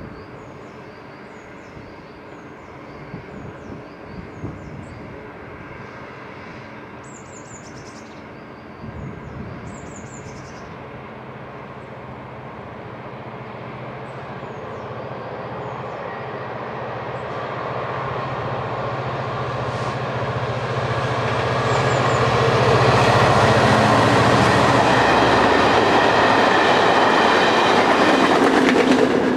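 Class 67 diesel-electric locomotive, with its EMD two-stroke V12 engine, hauling a test train toward and past the listener: a low engine hum with wheel and rail noise grows steadily louder over about twenty seconds and stays loud as it passes close by. Birds chirp over the first ten seconds.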